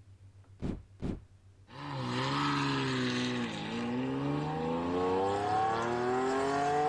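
Lamborghini Diablo V12 engine accelerating hard. The note climbs, drops once at a gear change about halfway through, then climbs steadily again. Two short clicks come just before the engine starts.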